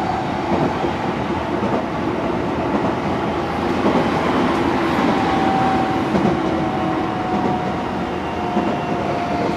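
Tokyo Metro 18000 series train heard from inside the car: wheels running on the rails with a steady rumble, and a thin whine from its Mitsubishi full-SiC inverter and permanent-magnet synchronous motors slowly falling in pitch as the train brakes for the next station.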